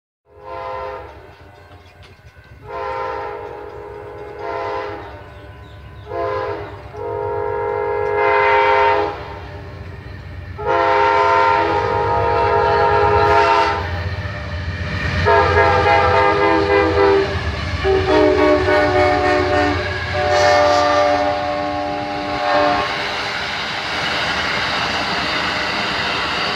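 Amtrak diesel passenger locomotive sounding its multi-note air horn in a long series of blasts, some short and some held for two to three seconds, over a growing engine rumble; the horn drops in pitch about halfway through as the locomotive passes. In the last few seconds the horn stops and the passenger cars roll by with a steady rumble and clickety-clack of wheels on rail.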